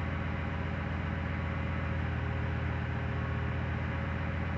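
Freshly rebuilt 2007 Ford 5.4-litre three-valve V8 idling steadily and quietly on its first run, heard from inside the truck's cab.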